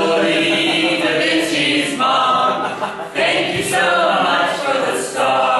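A small group of voices singing together without accompaniment, in long held notes, with short breaks between phrases about two and three seconds in.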